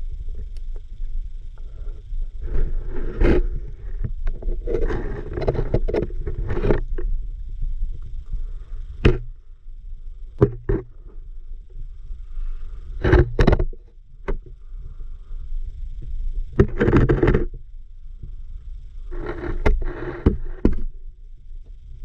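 River water heard through a submerged camera: a steady low rumble with irregular bursts of rushing, sloshing noise and a few sharp knocks.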